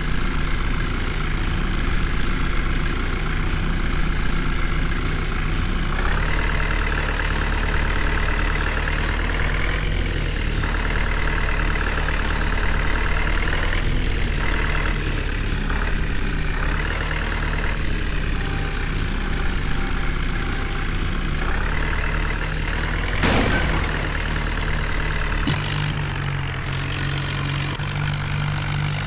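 Heavy diesel engine running steadily, its note shifting a few times.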